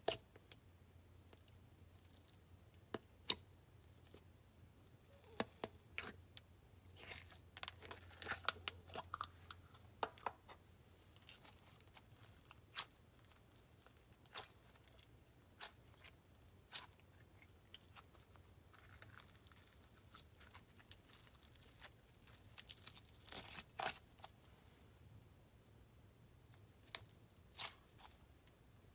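Slime with fishbowl beads being squished and stretched by hand, giving scattered sticky crackles, pops and bead crunches, busiest between about five and eleven seconds in and again near the end.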